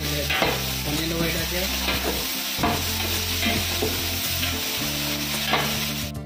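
Sliced onions and green chillies sizzling in hot oil in a large stainless steel pot, stirred with a long-handled spatula that scrapes along the pot now and then.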